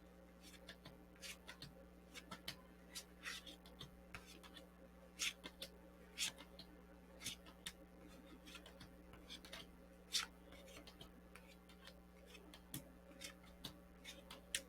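Faint, irregular clicks and short rustles of tarot cards being shuffled and handled, with a few sharper snaps, over a steady low electrical hum.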